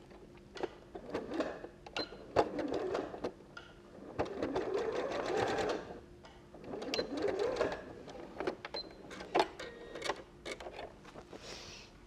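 Janome electric sewing machine stitching across the end of a fabric strip in three short runs of a second or two each, with sharp clicks in between.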